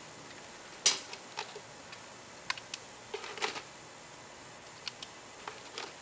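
One sharp click about a second in, then scattered softer ticks and taps, like small hard objects being handled.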